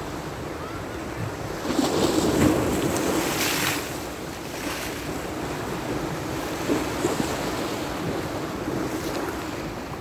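Choppy Black Sea waves washing and breaking against shoreline rocks, with one louder surge about two seconds in and smaller ones after. Wind buffets the microphone throughout.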